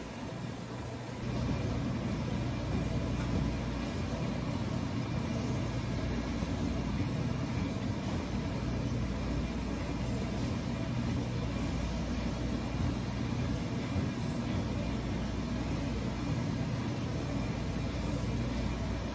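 Steady low rumbling background noise that steps up in level about a second in and then holds even.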